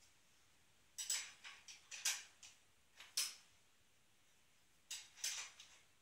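Light metallic clinks and clatters of a hand tool and bicycle parts being handled at a folding bike's front wheel during a tyre change, in a run of short knocks about a second in and a second cluster near the end.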